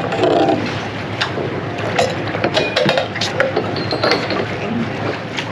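Scattered clicks and knocks of a boat hook and mooring line against the bow hardware as the mooring pickup line is being caught, over a steady rush of wind and water.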